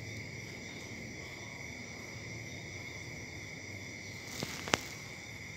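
Steady high-pitched chirring of insects, several overlapping tones, with two sharp clicks a third of a second apart about four and a half seconds in, the second the louder.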